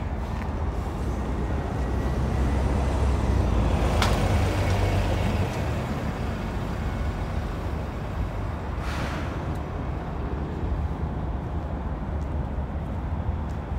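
City street traffic noise under a heavy low rumble that swells for a few seconds, with a sharp click about four seconds in and a short hiss around nine seconds.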